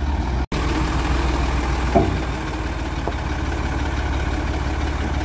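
Heavy Shacman dump truck's diesel engine running at a steady idle, a low even rumble. A single short knock about two seconds in.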